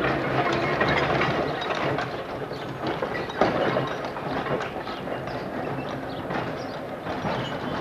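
Vintage Sóller electric tram running on its rails: steady rumble with wheels clicking irregularly over rail joints, and a sharp knock about three and a half seconds in.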